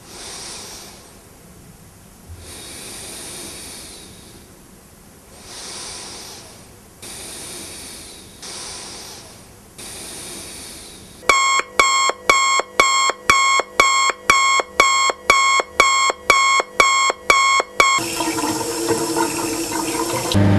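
Water running in a series of separate surges, each swelling and fading over a second or two, then an electronic beeping at about two beeps a second for roughly seven seconds, followed by a short stretch of mixed hiss and tones.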